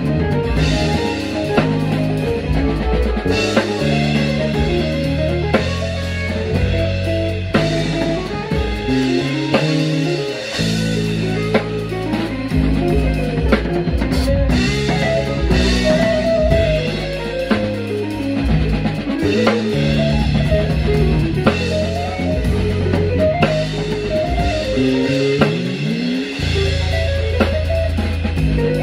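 A live band playing: an electric bass line moves in stepped low notes under a drum kit and guitar. Near the end the bass slides upward.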